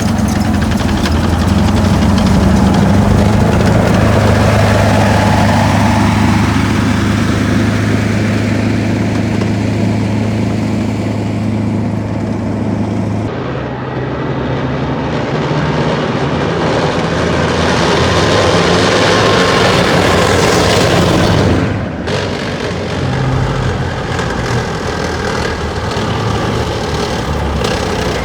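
Combat Vehicle 90 tracked armoured vehicle's diesel engine running steadily at a low, even hum. About 13 seconds in it cuts abruptly to a noisier passage with a faint rising whine as the vehicle works harder, and there is another abrupt cut about 22 seconds in.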